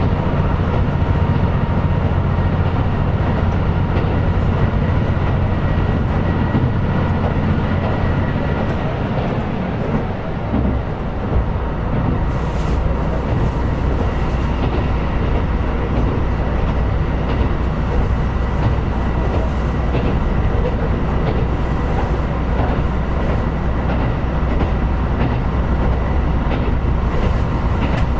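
KiHa 125 diesel railcar running along the line: a steady diesel engine drone under wheel and rail noise, with occasional clicks of the wheels over rail joints. About ten seconds in the engine note changes and settles into a lower drone.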